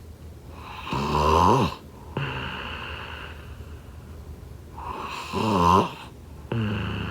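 A person snoring in slow, regular breaths: a loud snore on each in-breath, about four seconds apart, each followed by a quieter snore on the out-breath.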